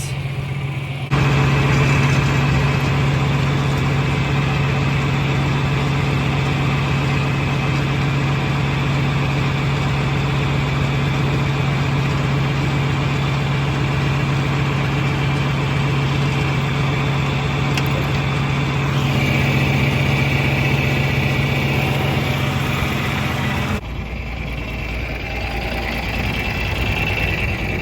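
Tractor engine running steadily with a strong, even hum. The sound starts abruptly about a second in, shifts slightly around two-thirds of the way through, and drops to a different, quieter engine sound near the end.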